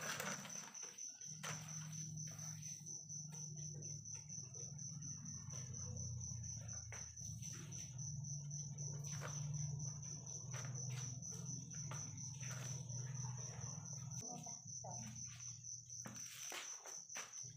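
Night crickets in a steady high-pitched trill over a low steady hum, with scattered short clicks and scrapes from a knife cutting jackfruit.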